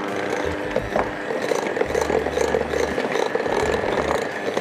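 Electric hand mixer running with a steady motor whine, its twin beaters churning cookie dough in a glass bowl.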